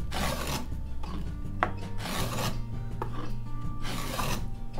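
Wooden skew-iron rabbet plane cutting a rabbet across the grain of a board: three rasping strokes, about one every one and a half to two seconds, with background music underneath.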